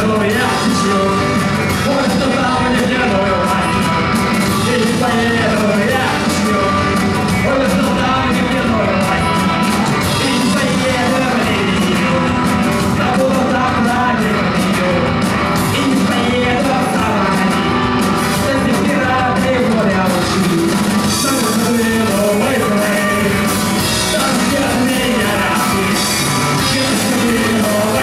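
Rock band playing live, with sung and shouted vocals over loud, dense instruments and drums. The cymbals grow busier about two-thirds of the way through.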